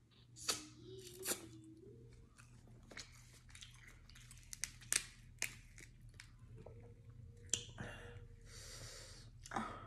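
Close-miked eating of sauce-coated crab legs: sucking meat out of the shell, chewing, and sharp snaps and cracks as shell pieces are pulled apart, with wet, sticky squishes from sauce-covered plastic gloves.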